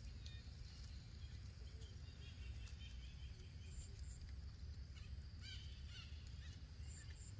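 Outdoor ambience: a steady insect drone with repeated short high chirps, over a low rumble. A bird calls briefly about two to three seconds in and again a little before six seconds.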